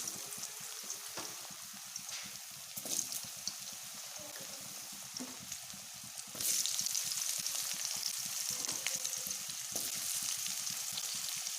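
Cumin seeds and thin-cut potatoes sizzling in hot mustard oil in a kadai, a steady crackling fry that grows louder about six seconds in. A few faint clicks come through it.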